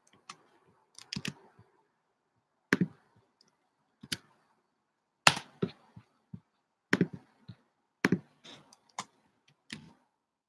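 Slow, irregular typing on a computer keyboard: about a dozen separate key clicks and taps with pauses between them.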